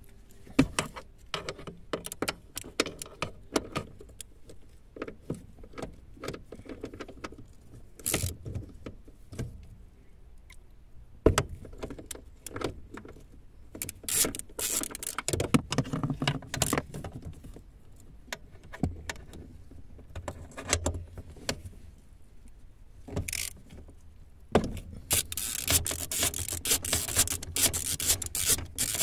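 Hand tools clicking, clinking and knocking against metal bolts and plastic trim while fasteners are undone, in irregular bursts. About 25 s in, it changes to a steady scraping and rubbing with rapid clicks.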